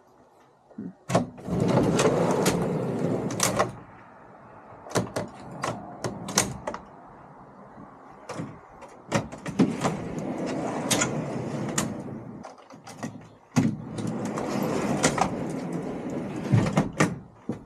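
Wooden truck-bed slide-out platforms being pulled out and pushed back in: four runs of rolling, rumbling noise, each a second or three long, broken by sharp knocks and clacks as the slides start and stop.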